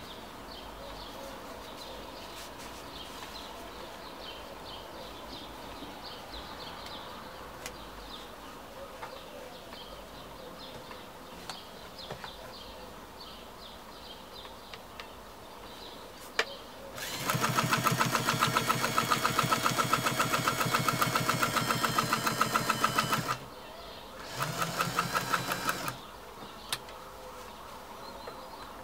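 Bernina 117-K sewing machine stitching at speed for about six seconds, a rapid even beat of needle strokes, then a second short run of about a second and a half. Before it, quieter handling of the cloth and machine with a few small clicks.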